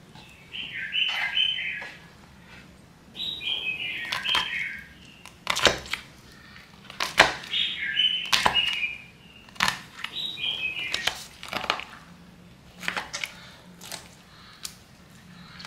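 A fork pricking raw chicken leg quarters on a wooden cutting board, making a series of sharp clicks and taps. Birds chirp in short repeated phrases in the background.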